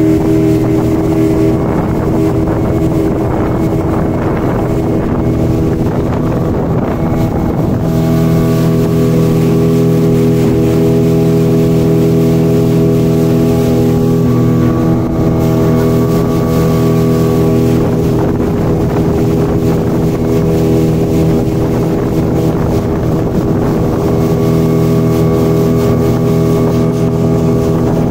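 Motorboat engine running steadily: an even engine hum with no break or change of pace.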